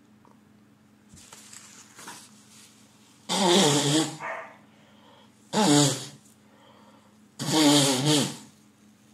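A man with a cold in a sneezing fit: three loud sneezes with a voiced cry in each, about two seconds apart, the middle one shorter. Faint breathing comes before the first.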